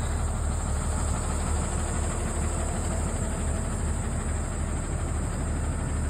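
International Blue Bird school bus engine idling steadily.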